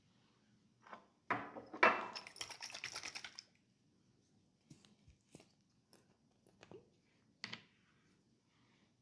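A quick run of rapid hand taps and slaps on the head and neck, lasting about two seconds, followed by five or so separate single clicks or pops spaced well apart.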